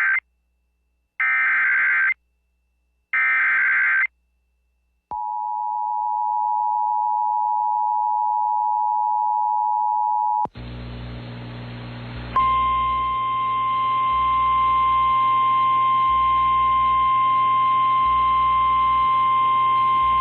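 Emergency Alert System activation: the end of one SAME header data burst and two more warbling digital bursts, each about a second long, then the two-tone EAS attention signal (853 and 960 Hz together) held steady for about five seconds. After it comes a background hum, and about a second and a half later a single steady 1050 Hz NOAA Weather Radio warning alarm tone that sounds through to the end.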